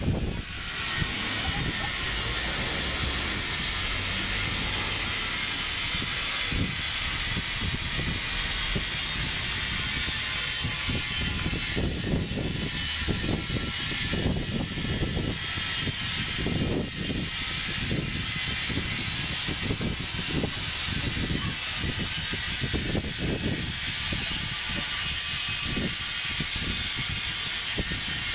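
Compressed air hissing steadily through an air hose into a truck inner tube's valve as the tube inflates, over an irregular low rumble.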